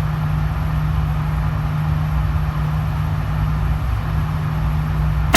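Steady low droning hum of an indoor shooting range's ventilation, with one sharp pistol shot right at the very end.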